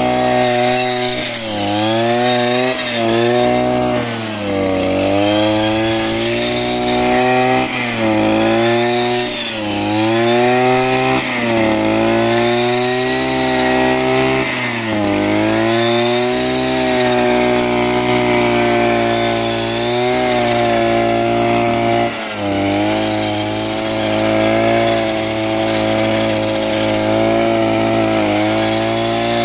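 Brush cutter's small two-stroke engine running at high revs with a 40-tooth circular saw blade fitted. Its pitch dips and recovers every second or two in the first half as the blade bites into the material and the engine comes under load, then runs steadier, with one brief dip about two-thirds of the way through.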